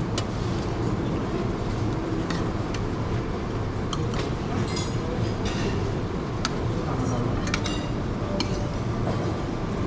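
Buffet dining-room bustle: a steady background murmur with scattered light clinks of metal serving utensils against pans and plates, about a dozen over the stretch.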